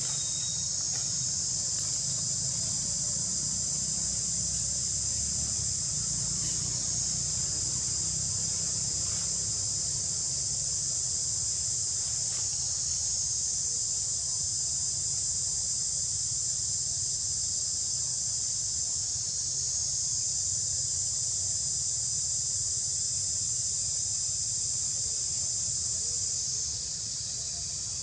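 A steady, high-pitched insect drone in the surrounding forest, over a low background rumble; the drone eases a little near the end.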